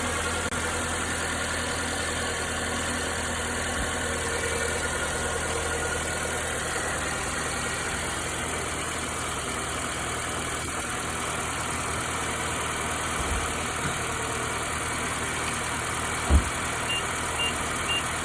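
Nissan MRA8DE 1.8-litre four-cylinder engine running steadily at idle, with a knocking or tapping that the owner, who hears it in gear, wonders is normal. A single loud thump about sixteen seconds in, and three short high beeps near the end.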